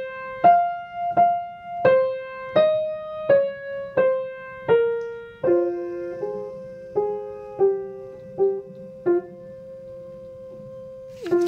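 Piano playing the soprano line of a choral piece, one struck note about every 0.7 s. About halfway through, one note is held while shorter lower notes move beneath it, splitting the line into two parts.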